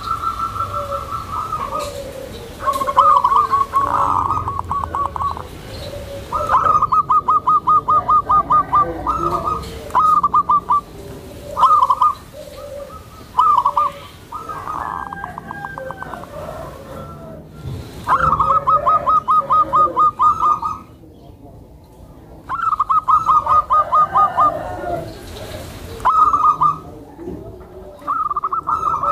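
Zebra dove (perkutut) cooing: over and over, a phrase of quick staccato notes lasting one to two seconds, with short pauses between phrases and a longer gap in the middle.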